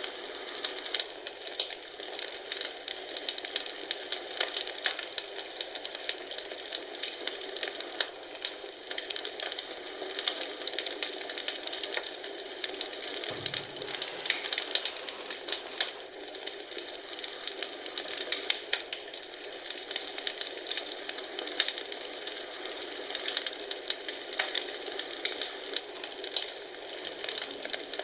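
Wood fire crackling in a fireplace: a steady hiss with dense, irregular pops and snaps.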